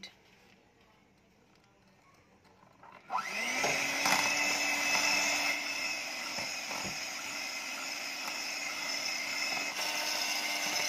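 Electric hand mixer switched on after about three seconds of quiet, its motor spinning up quickly and then running at a steady speed as the twin beaters whisk cooking oil into egg-and-sugar cake batter.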